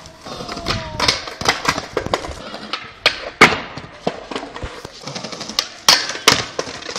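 Skateboard deck and wheels clacking and knocking on stone paving in repeated bails from a handrail boardslide: a string of sharp, irregular impacts, the loudest about three and a half seconds in.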